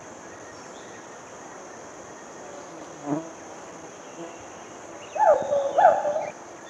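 A hoolock gibbon gives two loud calls in quick succession near the end, each rising then falling in pitch, after a fainter call about three seconds in. Under it runs a steady high-pitched drone of insects.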